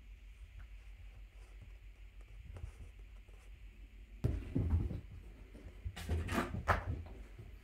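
Quiet room, then from about four seconds in, rustles and soft thumps of kittens at play on carpet, with a cluster of sharper rustles a couple of seconds later.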